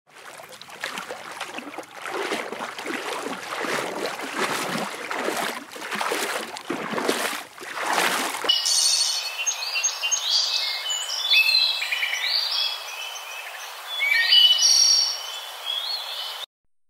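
For the first half, a dense, rushing noise with no distinct calls. Then, from about halfway in, a European robin sings: a string of high, varied whistled and warbling phrases, with short pauses between them.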